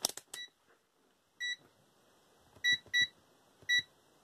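Digital multimeter beeping four times as its front-panel buttons are pressed to set it up for a capacitance reading: short steady-pitched beeps, the last three close together, after a few handling clicks at the start.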